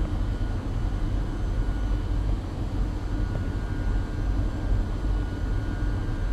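Steady machine-shop background noise: a low rumble of running machinery with faint steady whines above it.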